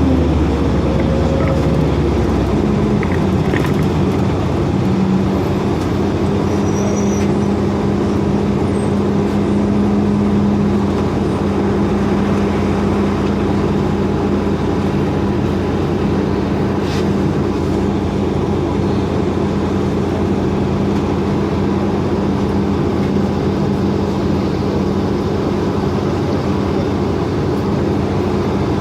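2004 Orion VII hybrid-electric transit bus running, heard from inside the cabin: a steady drivetrain hum with a held tone over road noise, a little heavier and lower in the first couple of seconds.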